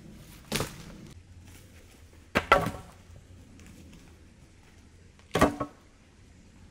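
Three sharp knocks a couple of seconds apart, the second and third each a quick double strike.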